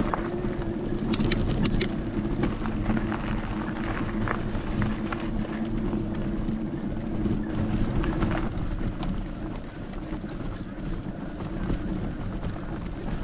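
Wind rushing over the microphone together with the rolling and rattling of a mountain bike's tyres on a rough gravel and stone trail, with scattered clicks. A steady low hum runs underneath and stops about two-thirds of the way through.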